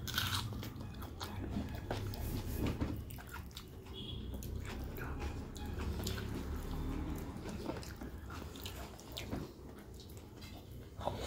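Close-miked chewing of a mouthful of rice eaten by hand, with many small wet mouth clicks, over a low steady hum. Fingers mix rice on a steel plate.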